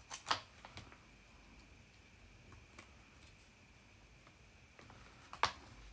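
A few light clicks and taps of small cut paper pieces being handled on a craft table: two near the start and a sharper one near the end, with quiet room tone between.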